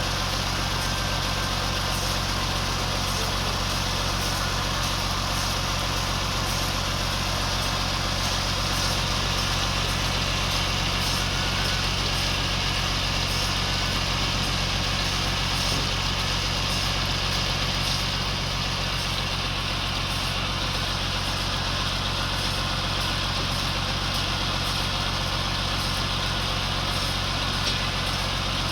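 Sawmill machinery running steadily: a low, even engine hum with a constant hiss of the saw above it, easing slightly partway through.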